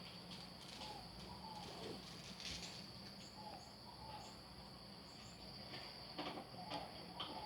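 Faint outdoor insect drone, a steady high-pitched buzz like crickets, with short chirping calls over it and a few sharp clicks near the end.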